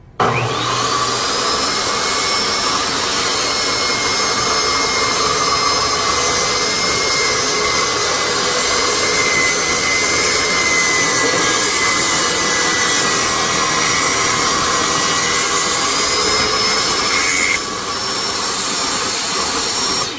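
Table saw switched on, its motor spinning up with a rising whine, then running loud and steady as the blade cuts a strip of wood; a few seconds before the end the sound dips slightly and the whine stops.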